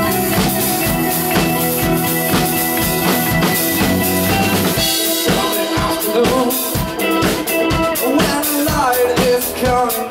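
Live rock band playing, with the drum kit prominent over electric guitar and bass. About halfway through the bass drops out, leaving drums, guitar and a lead line that bends in pitch.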